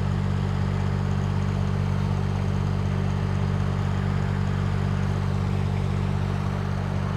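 Engine of an aerial lift running steadily at idle, a constant low hum.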